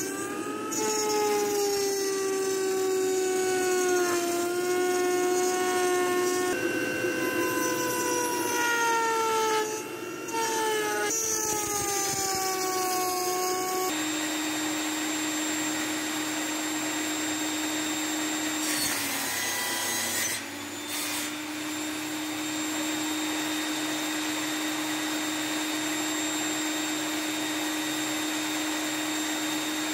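A woodworking machine's electric motor running while cutting a board, its pitch sagging and recovering as it takes the load. About fourteen seconds in it changes to a table saw running steadily, which drops in pitch briefly around twenty seconds as the blade cuts.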